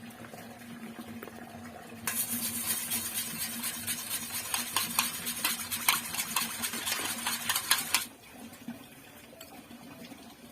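A utensil whisking a milk, egg and pepper batter in a bowl: rapid clinking against the bowl that starts about two seconds in and stops suddenly about six seconds later.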